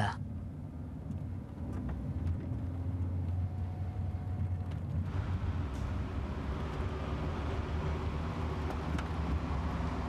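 Car driving, heard from inside the cabin: a steady low engine drone with road and tyre noise, the tyre hiss growing louder about halfway through.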